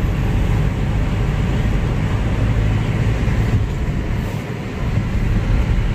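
Road and engine noise inside the cabin of a Tata Vista diesel hatchback on the move: a steady low rumble with an even hiss over it.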